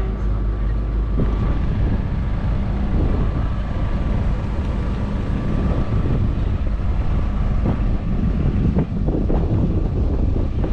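Wind buffeting the microphone: a heavy, gusty low rumble with a faint steady hum underneath.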